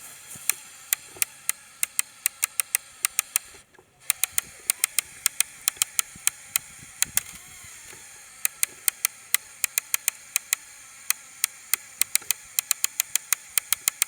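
LEGO Technic model gearbox clicking rapidly and irregularly as its plastic gears skip under load, several sharp clicks a second with a brief break just before four seconds in. The gearbox cannot hold the torque, which the builder calls its downfall.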